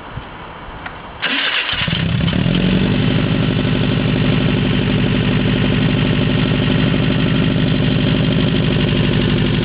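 Rebuilt Ford Mustang engine starting about a second in, catching and settling into a steady idle.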